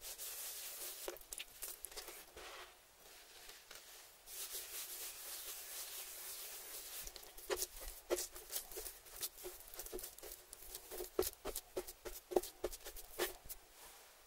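Hands rubbing a dry spice rub into thick raw beef steaks on a wooden board: a gritty, scratchy rasp of seasoning against the meat. From about halfway there is a run of quick pats and light slaps as the rub is pressed onto the steaks.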